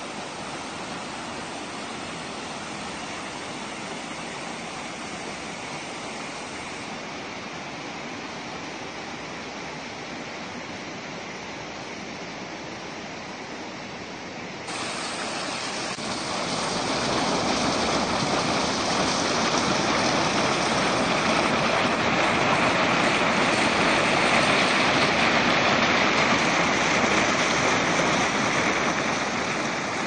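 Steady rush of water from the Manavgat Waterfall at a much-reduced flow with the dam gates closed, a single jet spilling from the rock ledge into the pool. The noise grows louder and brighter about halfway through.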